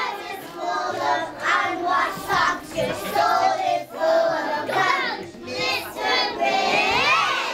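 A group of young children singing a song together, with a long rising note near the end.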